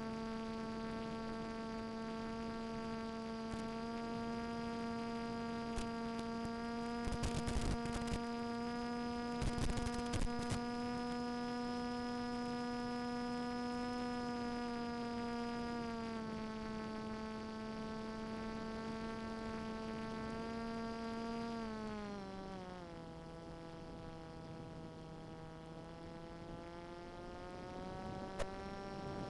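Brushless outrunner motor and APC propeller of a Swift II flying wing droning at a steady pitch, dropping in pitch about 22 seconds in as the throttle is eased back and climbing again near the end. Two short spells of crackling static come through about seven and ten seconds in.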